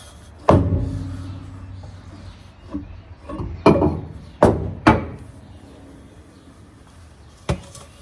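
Metal clunks as a car's driveshaft is worked loose and pulled out from underneath. The first clunk, about half a second in, is the loudest and rings briefly. Four more sharp knocks follow in the second half.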